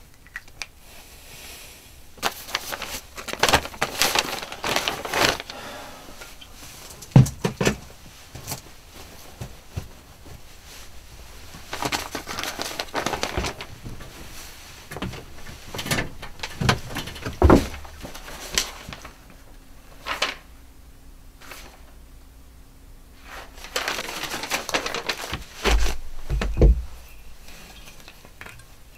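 Hands rummaging through a bag: plastic crinkling and rustling in three bursts, with a few knocks and clinks of objects being handled.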